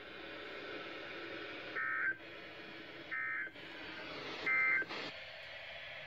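NOAA Weather Radio receiver sounding the EAS/SAME end-of-message code: three short bursts of warbling digital data tones, about 1.3 s apart, over a steady radio hiss. This is the signal that closes the Required Weekly Test broadcast, and the hiss drops away soon after the last burst.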